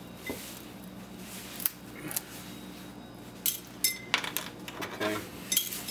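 Small pieces of gold-plated circuit board being snapped by hand and dropped into a glass jar: scattered sharp clicks and light glassy clinks, with one short ring about four seconds in.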